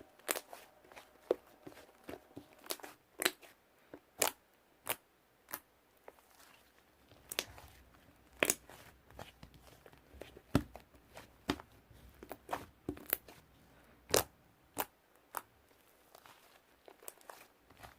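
Slime being mixed and worked by hand, giving irregular sticky pops and crackles, one to three a second.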